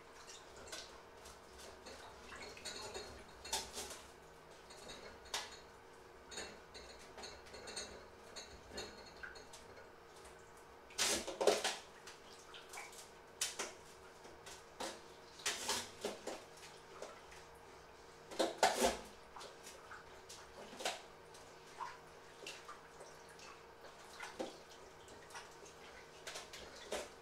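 Dishes being washed by hand in a sink: scattered clinks and clatter of plates and cutlery with some water splashing, with two louder bouts of clatter about 11 and 19 seconds in.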